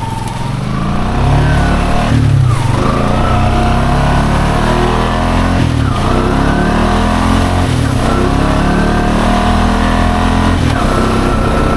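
Honda Foreman ATV's single-cylinder four-stroke engine running under load on a trail ride. The pitch holds steady, with a few brief dips and breaks where the revs change.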